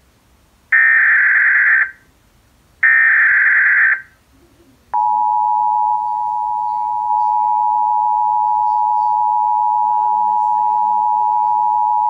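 Emergency Alert System broadcast signal: two harsh, buzzing data bursts of the SAME header, each about a second long with a short gap, then about five seconds in the steady two-tone attention signal starts and holds. Together they mark the start of an alert, here a severe thunderstorm warning, heard through a TV.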